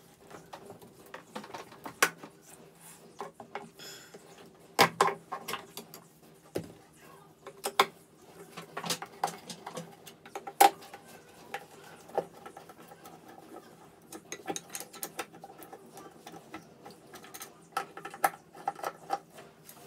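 Irregular clicks, taps and scrapes of a screwdriver and hands on the metal head and mounting bracket of a boat's fuel water separator as its mounting screws are worked loose.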